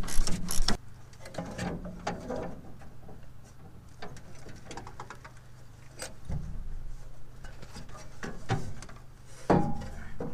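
Hand tools working bolts on a metal panel: a ratchet wrench clicking and bolts and small metal parts clinking in short spells with pauses, over a steady low hum.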